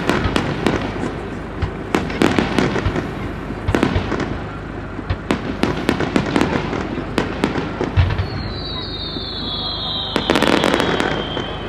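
Fireworks display: aerial shells going off in a string of sharp bangs and crackles at irregular intervals, with a long high whistle sliding slowly down in pitch over the last few seconds.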